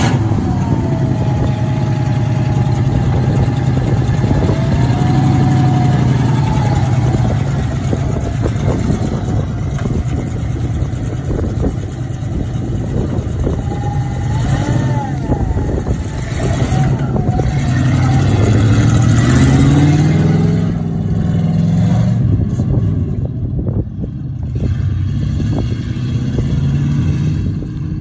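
1968 International Harvester 3/4-ton pickup's engine running and revving as the truck drives off, its pitch rising and falling several times.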